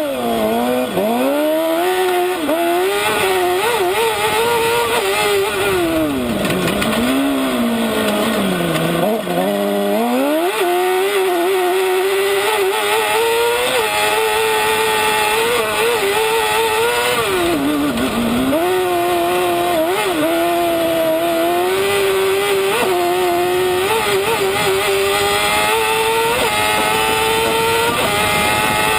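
Kart cross buggy's engine heard from on board under racing load, revs high most of the time and dropping sharply several times before climbing back as it comes off the throttle and accelerates again.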